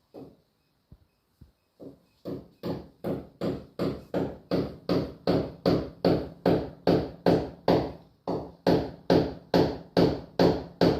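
Hammer driving a nail: a few light taps, then a steady run of even blows, a little over two a second.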